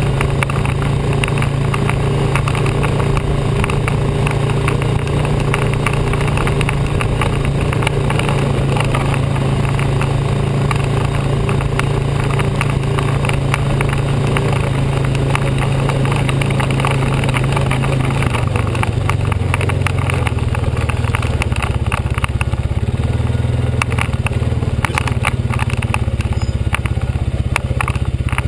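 ATV engine running steadily while riding over a dirt trail, with frequent clicks and rattles; about two-thirds of the way through the engine note drops lower.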